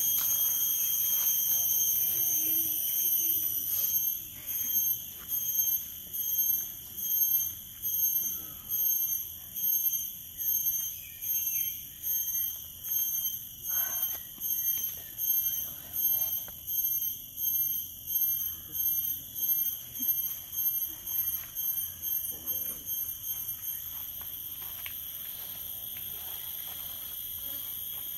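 Cicada singing: a high, shrill buzz that holds steady, then about four seconds in breaks into a pulsing rhythm of roughly one and a half pulses a second, growing fainter until it settles back into a steady buzz near the end.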